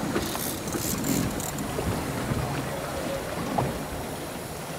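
Water splashing and sloshing along the side of a fishing boat, with wind noise on the microphone; a few short splashes in the first second and a half.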